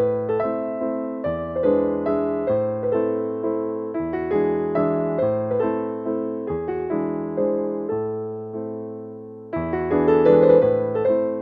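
Background piano music: gentle notes struck in a steady, flowing rhythm over changing bass notes.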